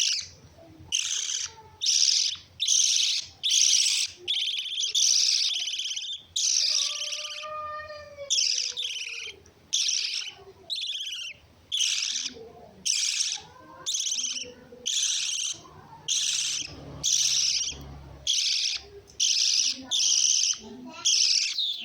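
Lovebirds chirping: loud, harsh, high chirps repeated about once a second, with one lower falling call about seven seconds in.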